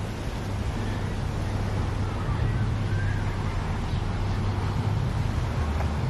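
Steady outdoor background noise: a low rumble with a constant low hum under an even hiss.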